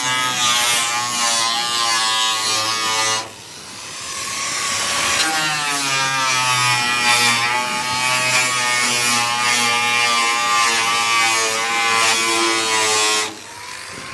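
An electric power tool's motor buzzing steadily. It cuts off about three seconds in, spins back up, and runs until shortly before the end.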